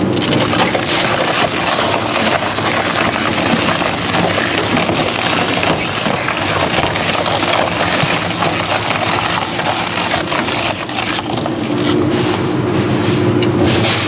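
A heavy crushing machine running and breaking up material, with a dense stream of cracking and splintering over the steady drone of its engine.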